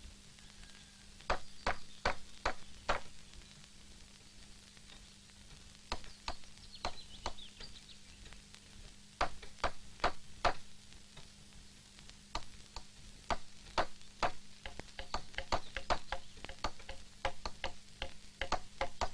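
Hammer strikes on wood, in short runs of three to five blows, then a quicker, steadier run of blows over the last several seconds. A steady low hum lies underneath.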